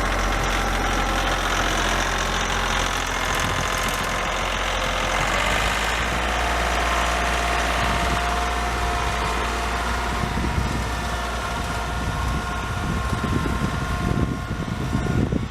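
Kioti 35-horsepower compact tractor engine running steadily, with a whine that rises about five seconds in and then holds steady.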